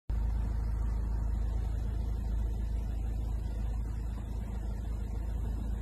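Car engine running: a steady low rumble.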